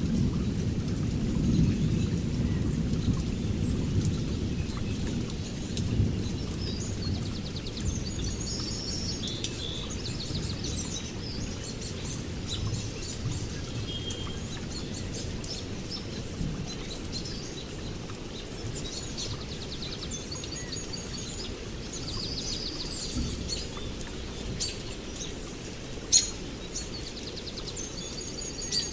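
Small birds chirping and trilling repeatedly outdoors over a low rumbling background, with a few sharp knocks, the loudest near the end.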